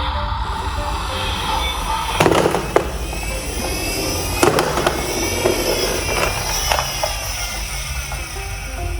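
Toy cars rolling fast down a ramp with a continuous rattling noise and a few sharp knocks, over background music.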